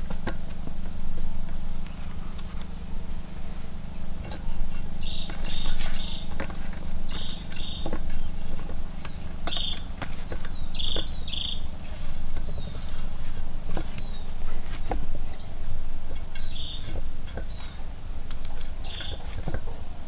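Hands rubbing chili spice paste into whole raw fish on a steel tray: soft wet rubbing with scattered light taps and clicks. Short high chirps in groups of two or three come every few seconds.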